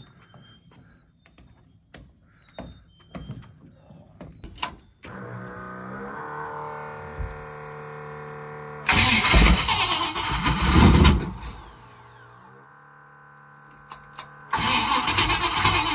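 Carbureted NASCAR V8 in a Donzi 18 being started: after a few knocks and a steady hum, it cranks and fires loudly for about three seconds, dies away, then catches again and runs near the end.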